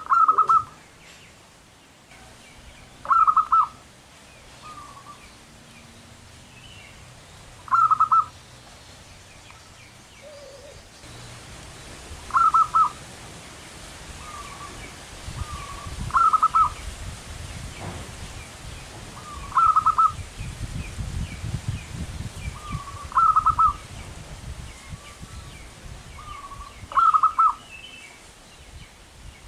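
Zebra dove (perkutut) singing its short, rapid, stuttering coo phrase about every four seconds, eight times, with softer coo notes between the phrases. A low rumble rises in the background through the middle stretch.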